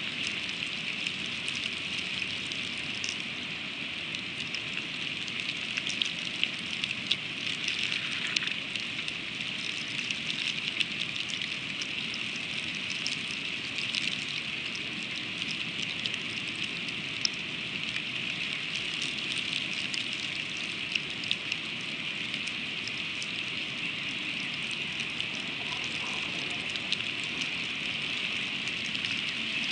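Freezing rain falling steadily: a dense hiss with many small sharp ticks of individual drops striking.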